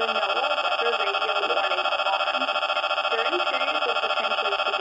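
ZoneGuard+ weather alert radio sounding its alarm, a loud, rapidly pulsing electronic tone triggered by a NOAA Weather Radio Required Weekly Test, with the broadcast voice faintly audible beneath it.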